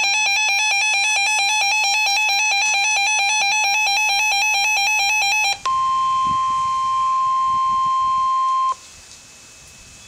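Emergency Alert System signals on NOAA Weather Radio for a flash flood warning: a loud, rapidly pulsing buzzy electronic alarm for about five and a half seconds, then the steady single-pitch weather radio warning tone held for about three seconds. It cuts off abruptly to faint hiss.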